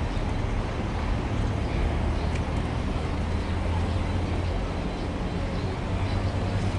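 Steady low rumble of street background noise with faint voices in it.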